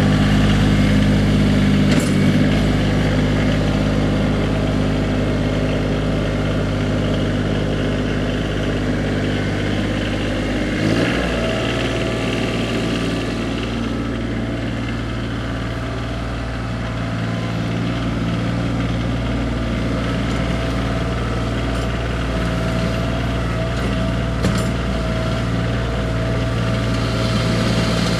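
A Kioti CX2510 compact tractor's three-cylinder diesel engine runs steadily as the tractor reverses away and then drives back. Its engine note changes about 11 seconds in and is slightly fainter while the tractor is farthest off.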